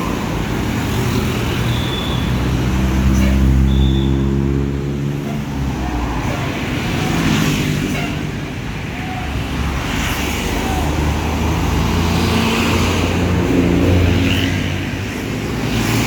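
Buses' heavy diesel engines in street traffic, running and pulling past, with the engine note rising and falling a few times.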